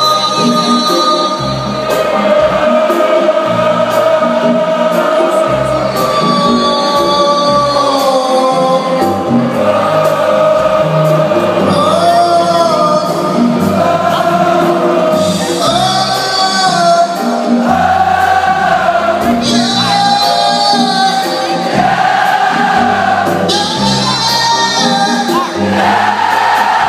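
Live band music: a singer holding long, stepping notes over bass, keyboards and congas.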